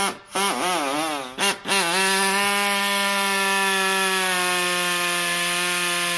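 Handheld corded power tool cutting down the mounting ears of a truck's coolant radiator. A few short bursts come first, the motor's whine wavering up and down as it bites, then it runs steadily for the rest.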